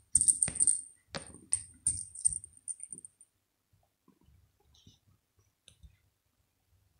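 Small bell inside a plush cat-toy ball jingling as the ball is shaken by hand, in a quick run of rings with a few knocks, stopping about three seconds in.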